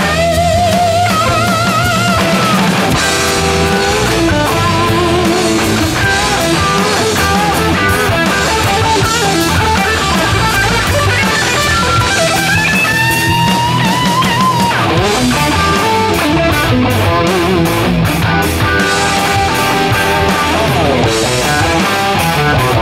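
Gibson Les Paul electric guitar played through a Line 6 Helix, a lead solo with wide vibrato and string bends, including a slow rising bend about halfway through. A rock backing track with drums and bass runs underneath.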